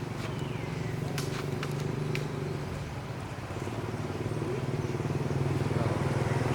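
A motor engine running steadily at low speed, with a low pulsing hum that grows louder over the second half. A few sharp clicks sound about one to two seconds in.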